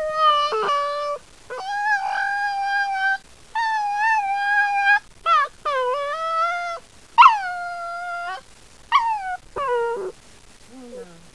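Long-haired dachshund puppy howling and whining in about eight drawn-out, wavering yowls with short gaps, several sliding down in pitch at the start: the puppy's speech-like 'baby talk'.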